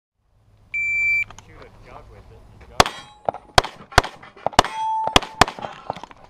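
Shot timer's start beep, then a string of rapid pistol shots, about eight, each sharp and close together; one shot is followed by a half-second metallic ring.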